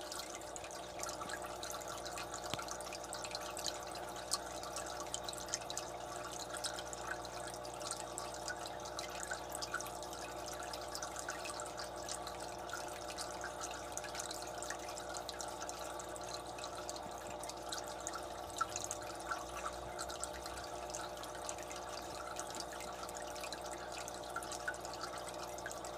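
Marineland Penguin 200 Bio-Wheel aquarium filter running: water trickling and dripping, with a steady ringing of several tones under it. It is a strange ringing that persists even with the impeller taken out, which the owner fears may be the motor.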